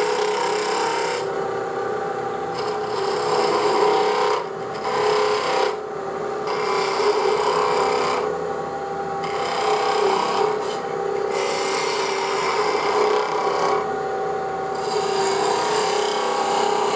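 A spindle gouge cutting wood spinning fast on a lathe, the cut coming and going in bouts of a second or two with short breaks, over the steady hum of the lathe running.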